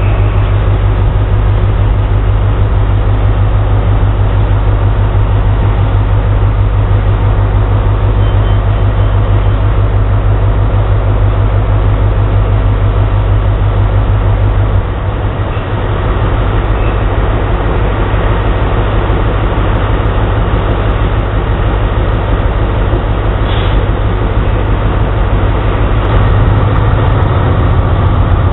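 Class 43 HST power car's MTU 16V4000 diesel engine pulling away under power at walking pace, a deep steady drone. It eases slightly about halfway through and grows louder near the end as the power car draws closer.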